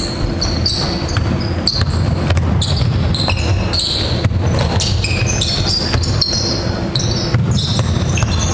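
Basketball game in a hall: the ball bouncing on the wooden court and many short, high sneaker squeaks as players cut and change direction, over a steady low hall rumble.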